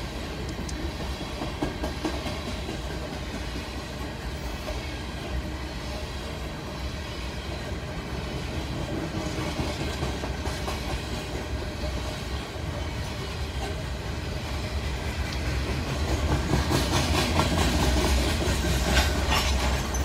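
Freight train of coal hopper cars rolling past: a steady rumble of steel wheels on the rails with clickety-clack, growing louder with a run of sharp clicks near the end.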